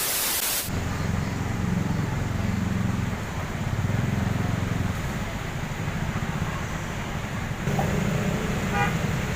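A bus engine running steadily, with voices around it.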